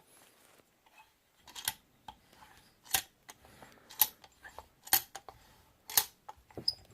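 Sharp little clicks and knocks, about one a second, with faint scraping between them, as a padlock is handled and set in a bench vise.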